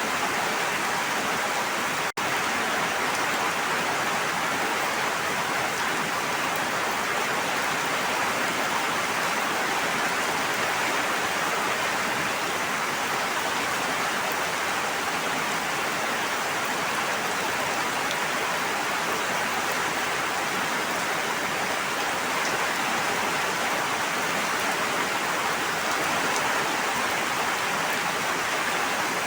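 Steady, dense rushing water noise, like heavy rain or fast-flowing water, with no distinct drops or waves standing out. There is a momentary drop-out about two seconds in.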